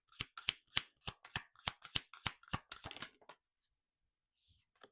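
Tarot deck being shuffled by hand: a quick run of crisp card clicks, about four a second, that stops about three seconds in, followed by a faint soft rustle of cards near the end.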